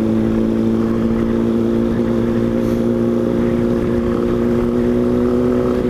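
Yamaha Ténéré motorcycle engine running at a steady cruise, holding one even pitch, with a low rush of road and wind noise underneath.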